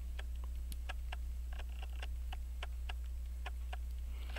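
Small, irregular metallic clicks of steel tweezer tips tapping and nudging a pocket watch balance wheel and its hairspring collet on a staking stump, as the collet is tested for tightness on the balance staff. A steady low hum runs underneath.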